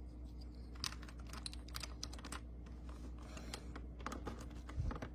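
Plastic Rubik's Cube layers being twisted by hand: irregular, scattered light clicks and clacks as the faces turn.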